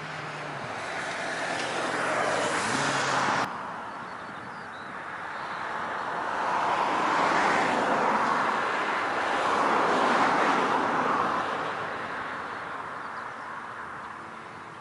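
Boeing 737-800's CFM56-7B jet engines running at taxi power, a steady jet whine and rush. The sound cuts off abruptly about three and a half seconds in, then swells and fades twice as the airliner taxis past.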